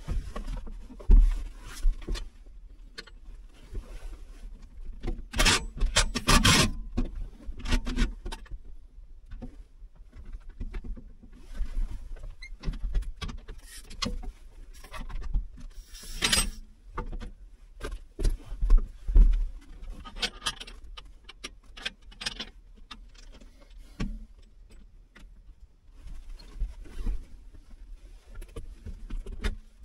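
Irregular clunks, knocks and rattles of metal parts being handled, with a few short, louder bursts of noise, as a vehicle seat is bolted into a truck cab.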